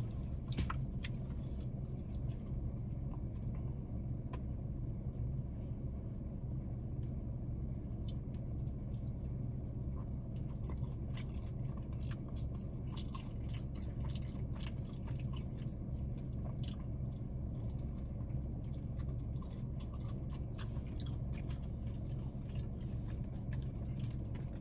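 Close-up chewing and biting of fried chicken, with many small, irregular crunching and mouth clicks, over a steady low hum inside a car.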